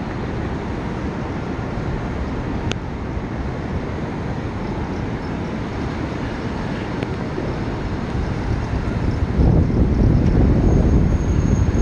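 Low, steady city traffic rumble mixed with wind noise on the microphone, swelling louder near the end, with one sharp click about three seconds in.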